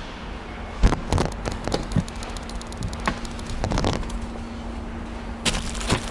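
Plastic wrapping crinkling and rustling close up in three short crackly clusters, over a steady low hum.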